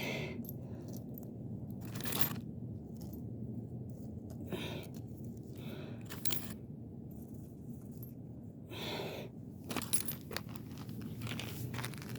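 Loose metal screws clinking and scraping as they are picked up off the ground by hand and dropped into a container, in short bursts a second or more apart.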